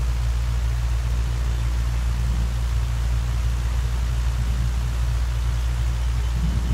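Steady low hum under an even background hiss, with no speech.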